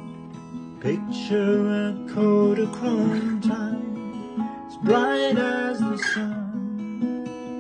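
Acoustic guitar playing a steady accompaniment under a man singing a slow song. His voice comes in twice, once about a second in and again around five seconds.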